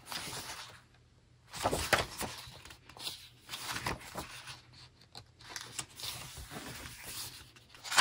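Paper rustling and sliding as the pages of an album photobook are turned and pressed flat by hand. The rustles come in irregular spurts, the loudest about one and a half seconds in.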